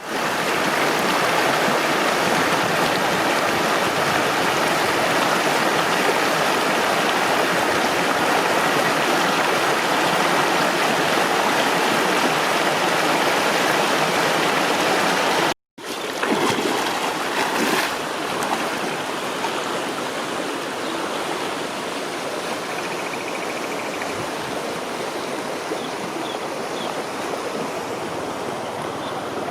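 Floodwater flowing and rushing steadily. It breaks off abruptly about halfway through, then goes on a little quieter.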